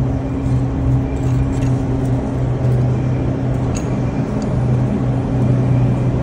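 Steady low hum of a running engine, unchanging throughout, with a few faint ticks over it.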